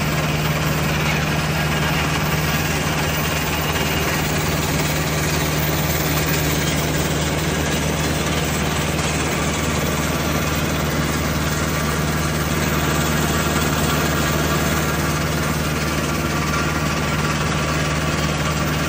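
Mobile vibrating screening plant running: a steady diesel engine hum under an even rattle and hiss from the vibrating screen deck and the conveyors dropping sand and grit.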